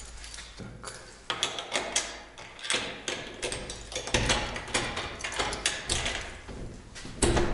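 Irregular clicks, knocks and scrapes of things being handled, with a louder knock near the end.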